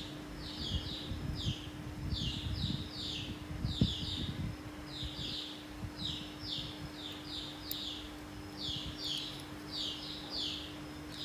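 Rapid high chirps in short groups of three or four, repeating about once a second, over a faint steady hum. Soft low knocks of parts being handled in the first few seconds.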